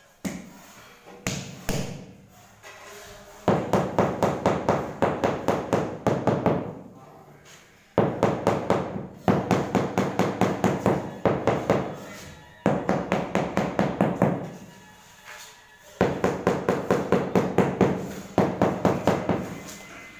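Rubber mallet tapping a large ceramic floor tile to bed it level in its mortar. It goes in quick runs of about five or six taps a second, each run lasting about two seconds, with a few single knocks in the first two seconds.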